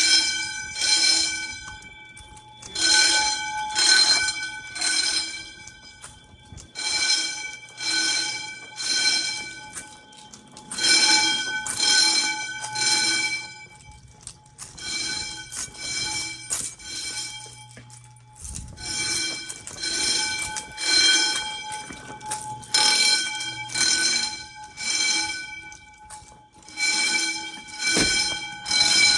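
Fire alarm bells ringing in the temporal-three evacuation pattern during an alarm test: three rings about a second apart, then a pause, repeating about every four seconds.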